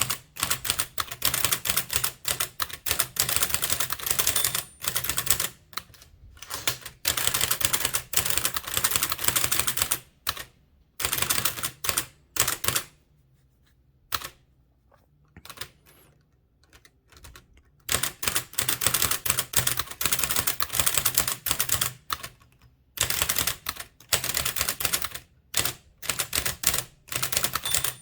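Blickensderfer typewriter being typed on fast, its type cylinder striking the paper in a rapid run of clacks, about four to five keystrokes a second. About halfway through the typing stops for roughly five seconds, with only a few single strokes, then the quick clacking picks up again.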